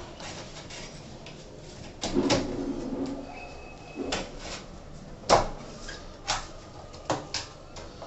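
A handful of sharp metallic clicks and knocks as the aluminium rail and side profile of a sliding door panel, with its roller wheel, are handled and pushed into place. The loudest knock comes a little past the middle.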